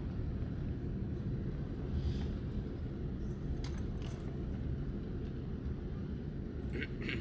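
Steady low rumble heard inside the cabin of a Boeing 787-9 airliner rolling along the runway after landing, engine noise and wheel rumble together, with a few faint clicks.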